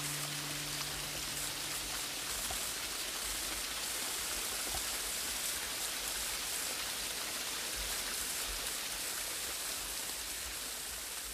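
Small waterfall sheeting and splashing down a rock face, a steady hiss of running water. A held low musical note dies away about two seconds in.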